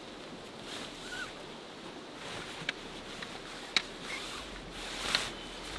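Nylon fabric of a Snow Peak Entry 2 Room tent rustling as it is pulled and spread on grass, with three sharp clicks of the tent poles being handled, over a steady hiss of outdoor background noise.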